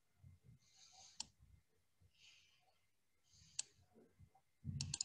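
Computer mouse clicking: two sharp single clicks, about a second in and again some two and a half seconds later, over near silence with faint hiss. A low thump and a few quick clicks come near the end.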